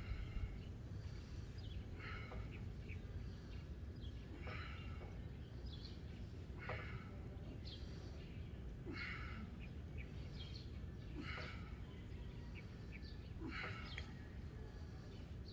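A man's forceful breaths, one with each pull-down rep, coming in even bursts about every two seconds over a steady outdoor background with faint bird chirps.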